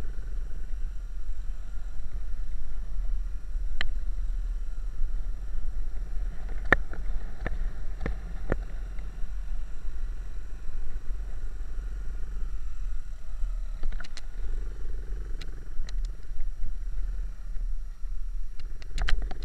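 Small trail motorbike being ridden over a rough dirt track: a steady low engine rumble mixed with wind buffeting the mic, and sharp knocks from bumps and rattles, a cluster of them in the middle and a few more near the end.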